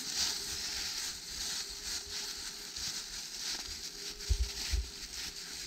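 Footsteps crunching and rustling through dry fallen leaves, with a few low thumps about four seconds in.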